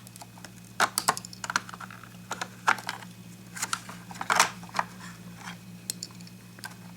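Irregular clicks and light knocks from hands handling a vintage Panasonic transistor radio's plastic case and controls, over a steady low hum.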